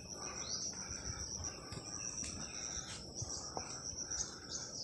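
Steady high-pitched insect trill, with a short falling chirp about half a second in and a few faint clicks.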